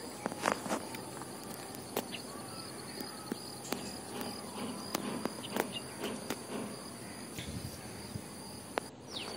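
Lake water splashing and sloshing in short irregular bursts with small clicks as a wading angler moves and handles a keep net, over a steady high insect trill.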